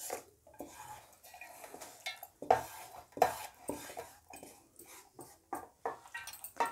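Spatula scraping cooked tomato mixture out of a non-stick pan into a steel mixer-grinder jar, with the pan knocking against the jar's rim. It is a series of short scrapes and clinks.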